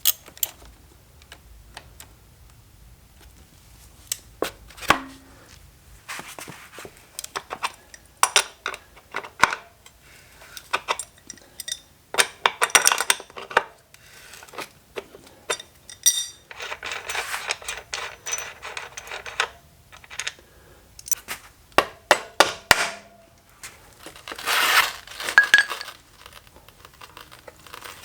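Hand work on motorcycle wheel and tire parts: irregular clinks and clatters of metal tools and parts, with several longer stretches of rustling and scraping.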